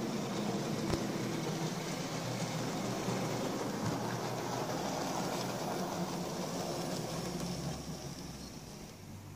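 Hornby OO gauge model of a BR Stanier Class 4P 2-6-4T tank locomotive running along the layout track: a steady hum from its motor and a rumble from its wheels on the rails. There is one knock about a second in, and the sound eases off near the end.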